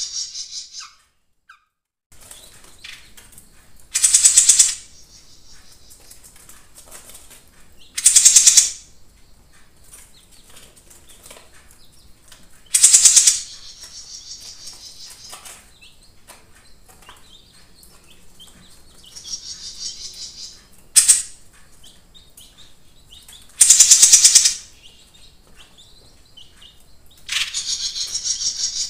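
A caged jenggot mini songbird singing loud, rapid trilling phrases, about six of them a few seconds apart, with softer chirps in between.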